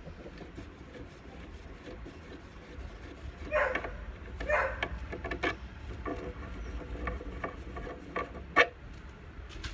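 Hand working at the inside of an old wooden drawer front to take off its handles. Wood rubs and scrapes in two short spells, about three and a half and four and a half seconds in, with scattered small clicks and one sharp knock near the end, all over a low steady rumble.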